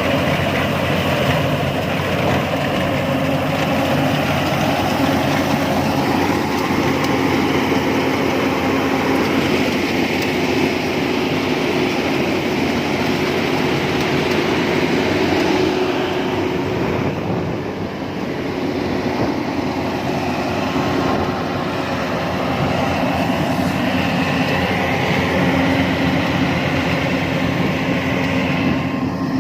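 Heavy farm machinery running steadily: a continuous mechanical drone with steady tones, dipping slightly in level about halfway through.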